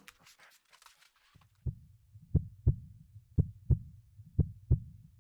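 A heartbeat: low double thumps, lub-dub, about one pair a second, beginning a little under two seconds in. Faint soft clicks come before it.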